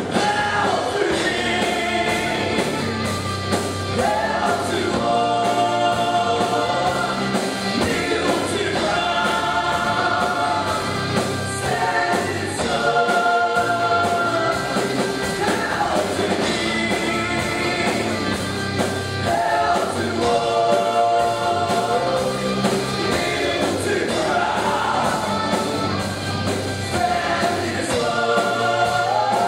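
Amateur rock band playing live, with electric guitars, bass guitar and a drum kit, and a melody of long held notes over it.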